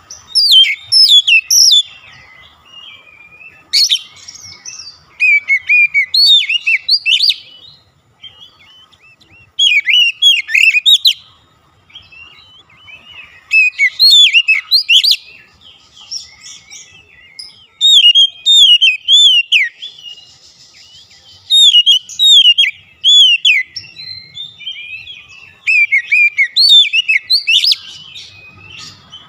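Oriental magpie-robin (kacer) in full song: loud bursts of rapid, varied whistles and chirps, each lasting a second or two, broken by short pauses.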